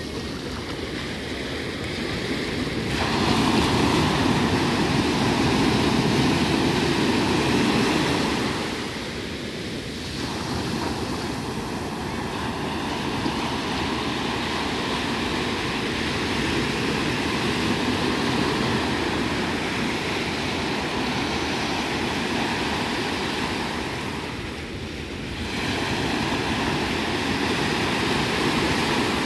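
Sea waves breaking and washing up the beach: a continuous rush of surf that rises and falls with the sets, loudest a few seconds in and again near the end.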